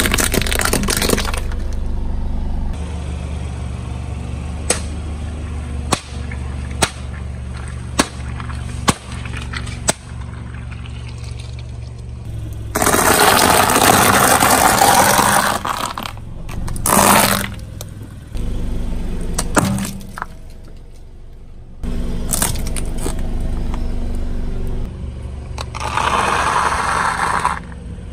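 A car tyre rolling slowly over objects and crushing them, with the car's engine running low under it. There are a string of sharp single cracks and pops, a longer crunching, squishing stretch about halfway as the tyre goes over a bed of water beads, and near the end the crunch of dry spaghetti snapping under the tyre.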